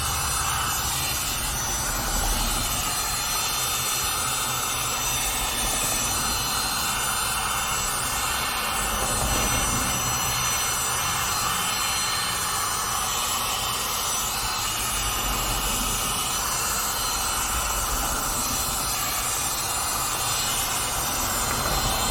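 Vacuum cleaner running steadily: a constant motor whine over the rush of air through the nozzle.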